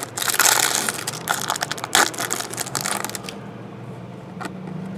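Plastic trading-card pack wrapper crinkling and tearing as a pack is opened, a dense rustling crackle for about three seconds that then dies down.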